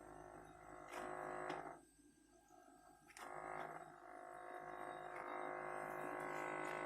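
Samsung RB30J3000SA refrigerator giving a rattling buzz from the freezer. It cuts out about two seconds in and comes back with a click about a second later. The owner traces the noise to the freezer evaporator and its tubes, which hang loose and vibrate against the back wall.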